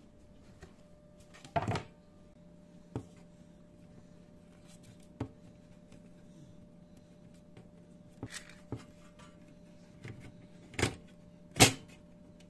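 Sharp clicks and knocks of keyboard case parts being handled and fitted together during reassembly, about seven in all, the loudest two close together near the end.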